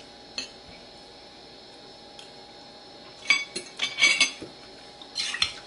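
Metal spoon and fork clinking and scraping against a plate while eating: a single clink at the start, a run of clinks and scrapes from about three to four and a half seconds in, and another short run near the end.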